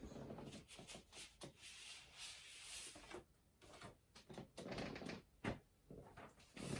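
Faint handling noises: light rubbing and rustling, with scattered soft knocks and clicks and a sharper knock near the end.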